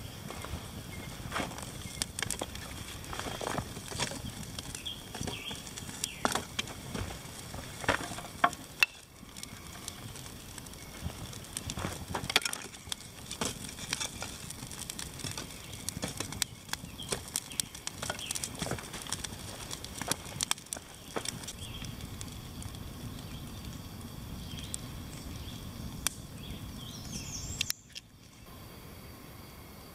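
Kindling campfire crackling, with irregular sharp pops and snaps from burning split wood. Near the end the crackling cuts off, leaving a quieter steady hiss.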